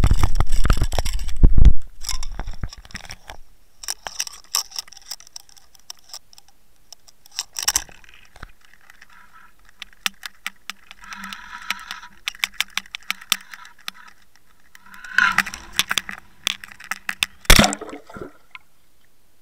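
Handling noise from a camera being moved about at the water's edge. A loud low rumble for the first couple of seconds, then scattered clicks, rattles and scrapes, and a sharp knock near the end as the camera goes into the lake.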